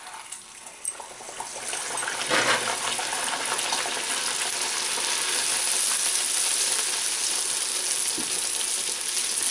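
Rolled bhatura dough dropped into hot oil and deep-frying: a crackling sizzle that swells over the first couple of seconds, then carries on steadily.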